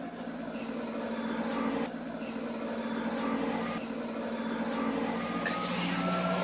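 A motor vehicle engine running with a steady hum, growing gradually louder, with a faint slowly rising whine near the end.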